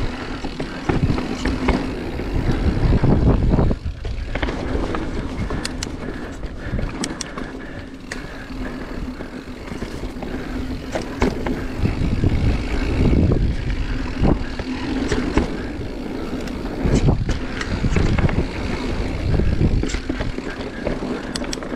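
Marin Mount Vision 8 mountain bike riding down a dirt singletrack: tyre and ride noise with wind rumbling on the handlebar-mounted microphone, and frequent short clicks and rattles from the bike over bumps.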